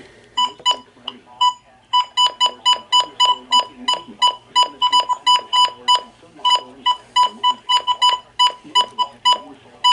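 Midland WR-100 weather radio's button beeps: a rapid string of short identical high-pitched beeps, about three or four a second with a couple of brief pauses, as its buttons are pressed over and over to set the clock.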